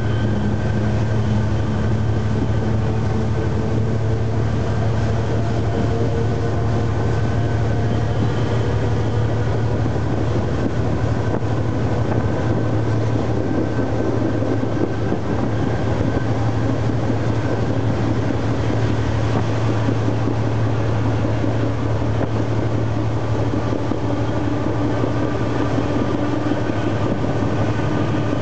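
GM diesel locomotive's engine running steadily under power, a constant low drone, together with the sound of the train rolling on the rails.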